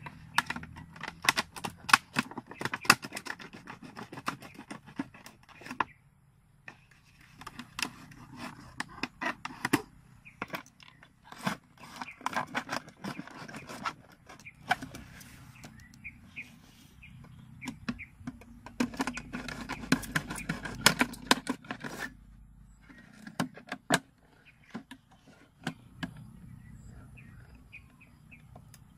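A knife cutting and sawing through a thin plastic cooking-oil jug: irregular bursts of scraping and crackling clicks, with short pauses between cuts.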